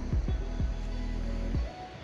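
Background music with a steady beat, dropping away briefly near the end.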